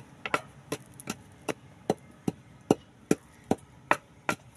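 Wooden pestle pounding chili paste for som tam in a mortar: a steady run of sharp knocks, about two and a half a second.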